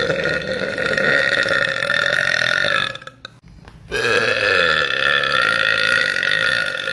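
Two long, loud burps from a woman, each drawn out steadily for three seconds or more. The first ends about three seconds in; the second starts a second later and carries on past the end.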